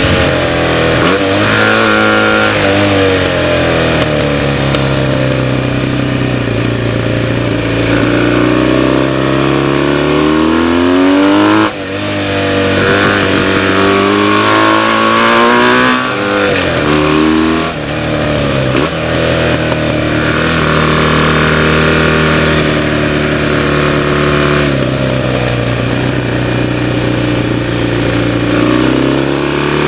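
Onboard sound of a BMW flat-twin racing motorcycle at race pace: the engine note climbs through the revs and falls back again and again for gear changes and corners, with a sharp drop about twelve seconds in. Wind rushes over the camera the whole time.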